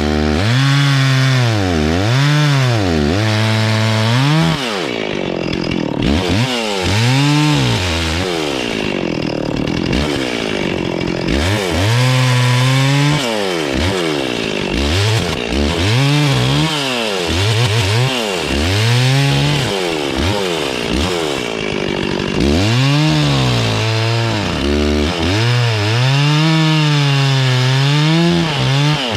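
Two-stroke chainsaw cutting up a downed tree, the engine speed rising and falling over and over as it revs and cuts.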